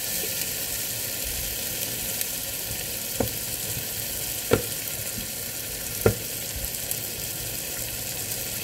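Diced onion frying in margarine in an electric multi-cooker pot: a steady sizzle while it is stirred, with three sharp knocks between about three and six seconds in.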